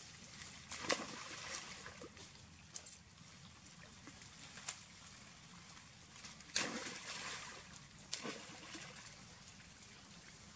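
Macaques splashing in river water as they jump in and swim: several sudden splashes, the loudest about two-thirds of the way through, with a light trickle of water between them.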